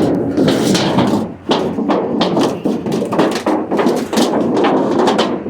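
Scrap metal being bent and handled, a quick, irregular run of knocks, clanks and crinkling.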